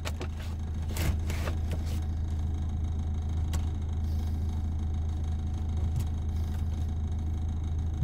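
A steady low hum, with a few light clicks and rustles of small things being handled.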